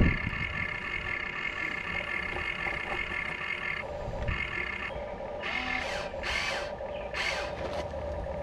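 Small electric motors and plastic gearing of radio-controlled construction models whining, cutting out and starting again at uneven moments, with a thump at the start and a few short rasps near the end.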